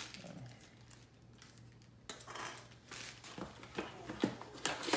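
Camera box contents being handled: little sound at first, then, from about two seconds in, soft rustling and a run of small sharp clicks and taps, the sharpest near the end.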